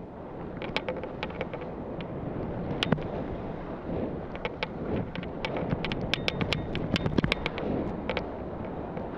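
Wind rushing over a helmet camera's microphone as a skier runs down a groomed slope, a steady low rush, with the skis scraping on firm snow. Many sharp clicks cut through it, thickest from about four to eight seconds in.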